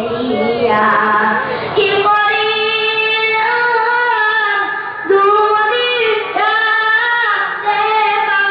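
A child's voice singing a slow melody, holding long notes that bend up and down in pitch.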